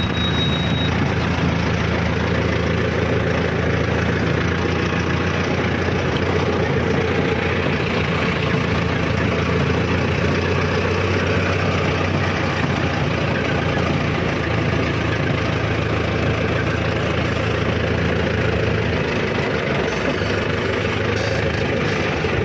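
Mahindra Arjun Novo 605 DI tractor's four-cylinder diesel engine running steadily as the tractor drives along.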